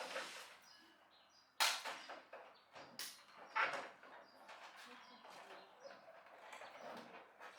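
A few sharp knocks and scrapes of hard objects being handled: the loudest about a second and a half in, two more around three seconds in, with quieter shuffling between.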